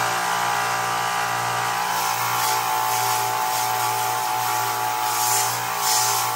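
Belt grinder running with a steady motor hum while a metal knife guard is ground on a 40-grit zirconia belt; the grinding hiss swells about two and a half seconds in and again near the end.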